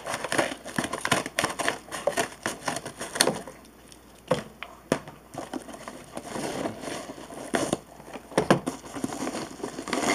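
Paper mailer bag crinkling and rustling as it is handled and opened, with irregular sharp crackles and a quieter lull partway through.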